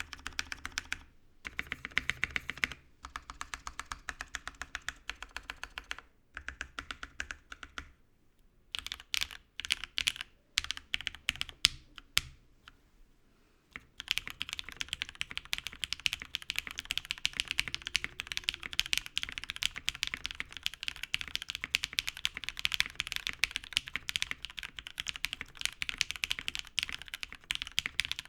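Typing on a Jiot Rev3 prototype 1800-layout mechanical keyboard with lubed and filmed, broken-in Cherry MX Black hyperglide linear switches in an aluminium plate, no foam. Short runs of fast typing come first, then a dozen or so separate key presses, then from about halfway through a long run of steady fast typing.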